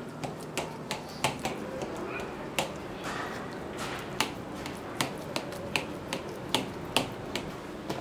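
Kitchen knife clicking against the bottom of a steel tray as it cuts through set tender coconut halwa: sharp irregular clicks, about two a second.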